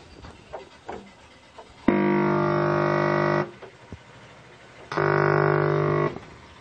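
A CRT television's speaker giving out a loud, steady buzz twice, each about a second and a half long and starting and stopping abruptly, as the audio-video lead's plug is worked into the set's AV socket, with a few faint clicks between.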